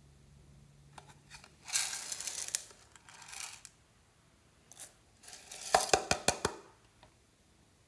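Tiny clay lemon slices rattling as they are shaken out of a hollow plastic container into a palm, then a quick run of sharp clicks and rattles as more pieces spill out and the plastic container is handled.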